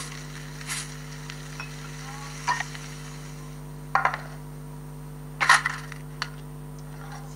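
Stop-motion cooking sound effects heard from a played-back video. A faint frying sizzle runs through the first few seconds, then come a few sharp clacks as a plate and a Lego brick are set down, the loudest about five and a half seconds in. A steady electrical hum runs underneath.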